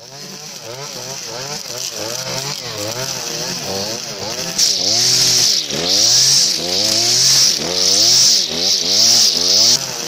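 Petrol string trimmer running, its engine revving up and down again and again. From about halfway in, a loud hiss comes in surges as the spinning line cuts through tall grass and weeds, stopping just before the end.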